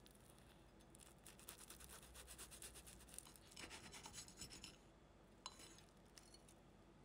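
Faint, rapid crackling scrape made of many quick little clicks, lasting a few seconds, then one sharper click and a few small ones.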